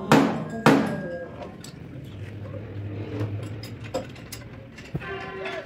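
Two loud metal clanks that ring briefly, near the start, as a cast aluminium intake manifold for a Hino truck diesel engine is handled and knocks against metal, then a few quieter knocks and clicks as it is fitted against the cylinder head.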